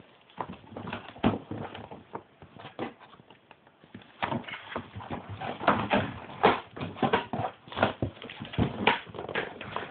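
Handling of a boot box and its packing: irregular knocks, taps and crackly rustles, sparse at first and busier from about four seconds in.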